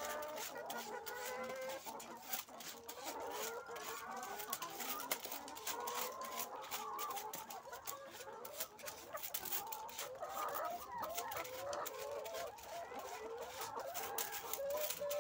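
A flock of laying hens clucking, many calls overlapping, with frequent sharp clicks and taps throughout.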